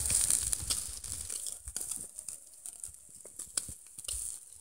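Meat skewers sizzling over hot charcoal in a mangal, with irregular sharp crackles and pops as fat drips onto the embers.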